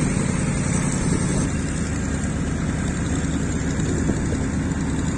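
An engine running steadily, a constant low drone with a hiss over it.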